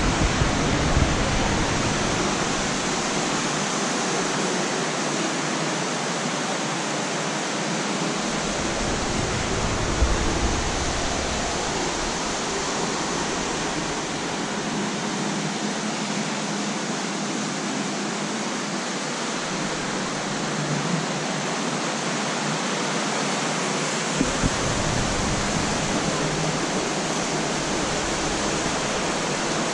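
Steady rushing noise with no distinct events, like the constant air noise of a large hall. A deeper rumble joins it about eight seconds in for a couple of seconds and again from about twenty-four seconds on.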